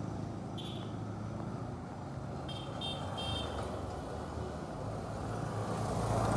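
Street traffic: a motor vehicle's engine hums steadily, with a short high beep about half a second in and three quick high beeps around the middle.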